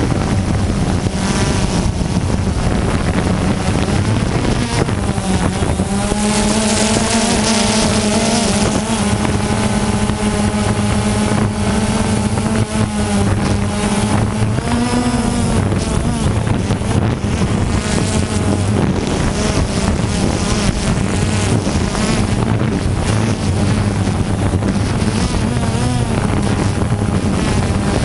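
DJI Phantom 2 quadcopter's brushless motors and propellers buzzing loudly right at the camera, the pitch wavering up and down as the motors change speed to steer and hold the craft.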